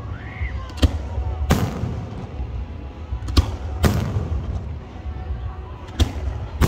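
Fireworks display: aerial shells bursting in sharp, echoing bangs, about six in the space of a few seconds, over a steady low rumble.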